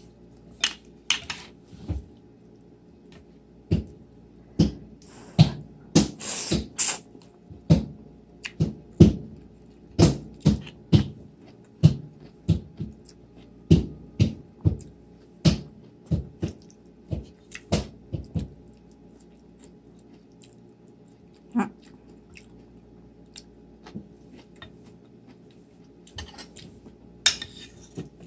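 Eating at a meal: a quick run of sharp clicks and taps, one to two a second, that thins out to a few scattered ones after about nineteen seconds.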